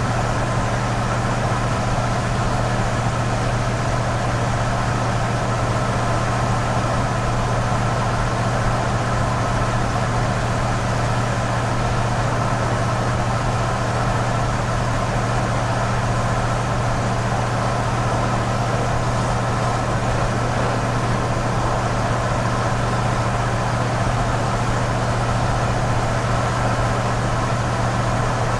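Cargo van engine idling with a steady low hum, unchanging in pitch and level.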